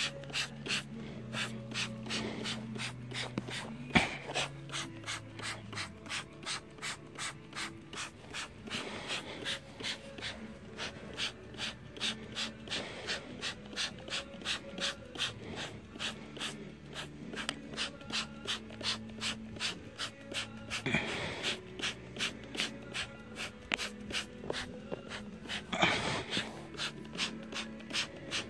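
Trigger spray bottle squirting cleaner onto a rubber RC tire in quick repeated pumps, about three sprays a second, with a few louder squirts. Faint background music with slow held low notes plays underneath.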